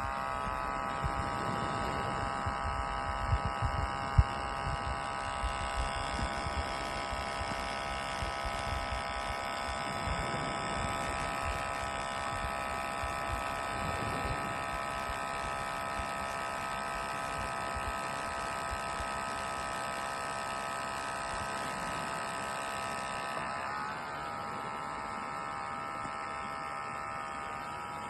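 Outin Nano portable espresso machine's electric pump running with a steady buzzing hum while it brews, with a few light knocks in the first few seconds. Its pitch drops slightly about four-fifths of the way through.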